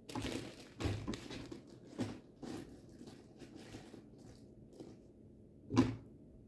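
Things being handled and put away by hand: a series of short rustles and knocks, with one louder thump near the end.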